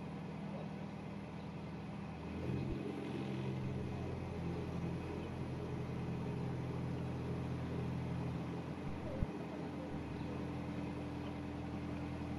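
Narrowboat engine running steadily underway, its low hum shifting in pitch about two and a half seconds in. A single sharp tick sounds near the end.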